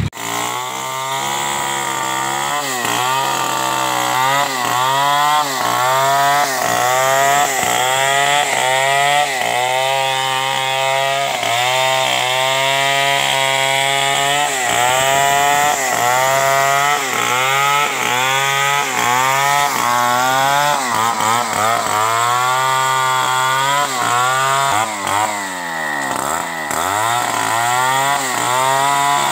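Petrol chainsaw cutting into a tree trunk, its engine note rising and sagging about once a second as the chain bites into the wood. Near the end the revs drop low once and climb back.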